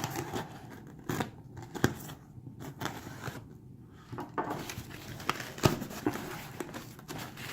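Cardboard shipping box being opened and its packing handled by hand: rustling and crinkling with scattered sharp clicks and knocks, the loudest knock about two thirds of the way through.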